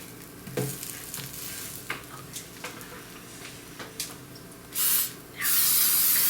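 Eggplant slices frying with a steady sizzle, with a few light clicks of a utensil against the pan. Near the end come two loud bursts of hiss, a short one and then a longer one lasting about a second.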